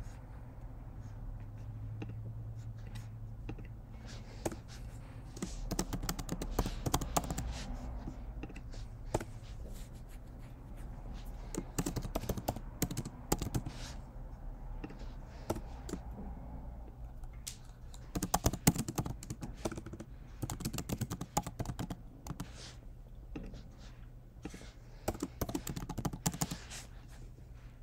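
Typing on a computer keyboard: several bursts of rapid keystrokes, with single clicks in between.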